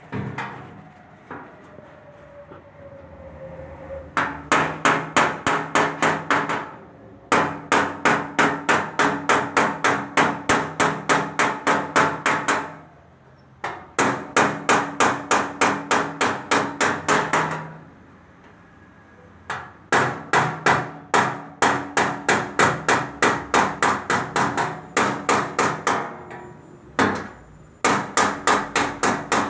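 Hammer beating on the sheet metal of a car's engine hood while air vents are made in it, about four ringing blows a second in runs of several seconds with short pauses between.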